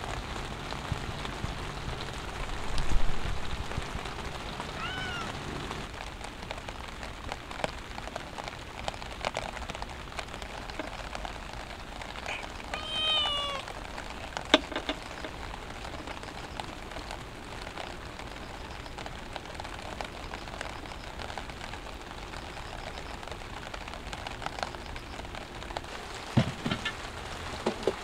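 Steady rain falling, with a cat meowing twice: a short meow about five seconds in and a longer, falling meow around thirteen seconds. A low thump comes about three seconds in, and a few knocks come near the end.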